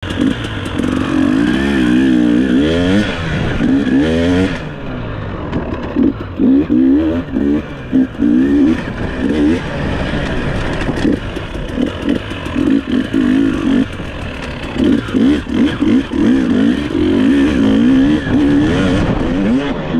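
Off-road dirt bike engine under riding load, its revs rising and falling constantly as the throttle is worked, with many brief chops where the throttle is shut off.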